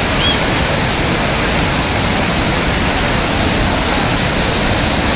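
Muddy floodwater of a wadi in flash flood rushing past: a loud, steady rushing of water with no letup.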